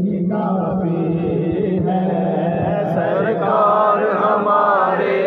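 A man chanting a devotional naat into a microphone, amplified, in long wavering held notes over a steady low hum.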